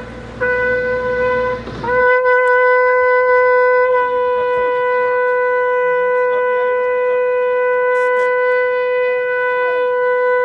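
Long spiral-horn shofar blown: a short blast of about a second and a half near the start, then after a brief break one long blast held at a steady pitch to the end.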